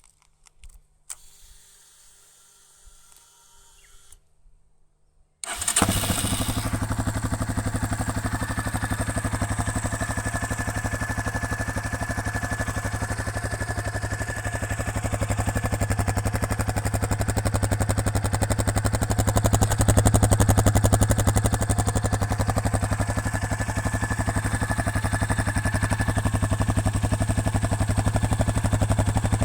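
A Yamaha Serow 250's air-cooled single-cylinder engine, exhausting through a Delta Barrel 4S silencer, starts about five seconds in after faint clicks and then idles steadily, a little louder for a few seconds midway. Its exhaust keeps a light hollow popping echo from inside the tailpiece, reduced by glass wool packed into the tailpiece gap.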